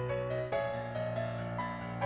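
Background solo piano music: a melody over sustained chords, with new notes struck every half second or so.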